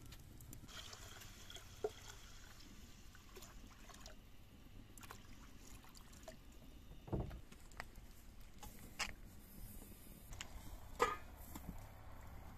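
Water poured from a plastic jug into a small metal pot of rice and sloshing as the rice is washed, with a few sharp knocks of the pot and jug in the second half.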